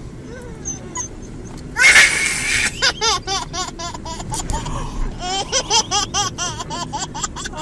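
A small child laughing: a loud breathy squeal about two seconds in, then a long run of short, quick bursts of giggling.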